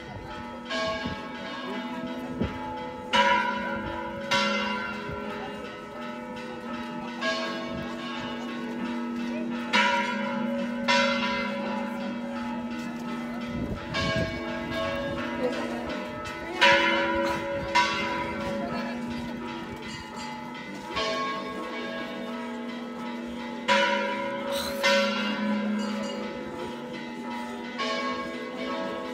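Church bells ringing in an irregular peal: strokes of bells of different pitch every one to two seconds, each one ringing on under the next.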